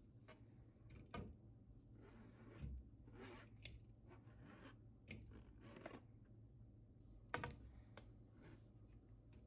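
Faint handling noises: scattered small clicks and brief rustling over a low room hum, with the sharpest click about seven seconds in.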